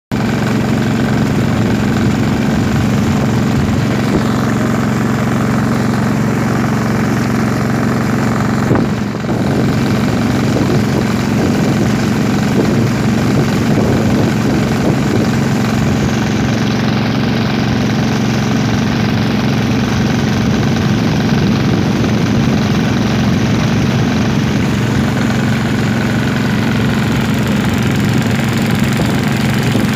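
A small boat's engine running steadily with a low hum.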